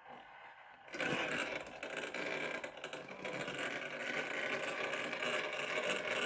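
A 1/6-scale RC crawler's brushless motor and geared drivetrain whirring, starting suddenly about a second in and running steadily after that.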